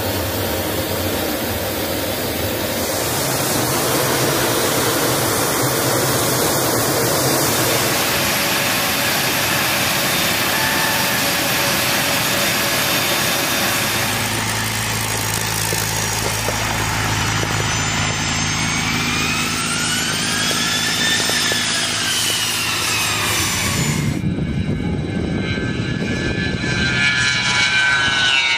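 Jet engine noise from the flight line with a steady rush throughout and a whine that rises and then falls about two-thirds of the way in. Near the end an A-10C Thunderbolt II's twin TF34 turbofans whine past, the pitch dropping as the jet goes by.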